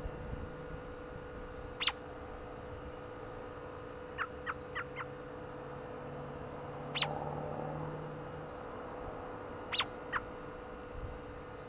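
American robin giving short, sharp chirps at intervals: a single call, then a quick run of four softer chirps, another single call, and a close pair near the end.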